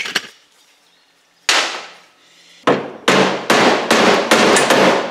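Hammer blows, metal on metal, driving a punch against a rusted-on rear axle bearing of a Razor Ground Force go-kart. There is one ringing strike about a second and a half in, then a quick run of about seven or eight strikes. The bearing is rusted to the shaft and barely moving under the blows.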